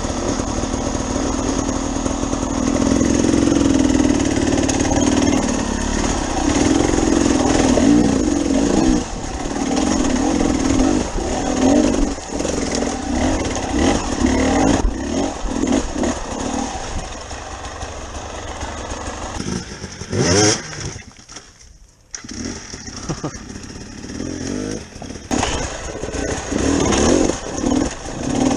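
Off-road motorcycle engine running and being revved up and down as it is ridden, with a sharp rising rev about two-thirds of the way through and a brief drop just after.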